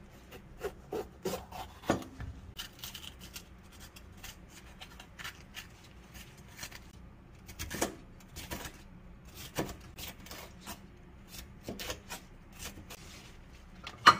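Kitchen knife slicing green bell peppers into thin strips on a plastic cutting board: irregular taps and scraping strokes of the blade against the board, with a sharp knock near the end.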